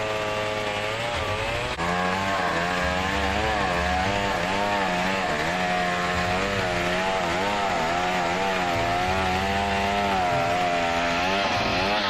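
Two-stroke chainsaw running at high revs with its bar ripping lengthwise through a coconut trunk. The engine pitch wavers up and down as it loads in the cut, with a brief dip just before two seconds in.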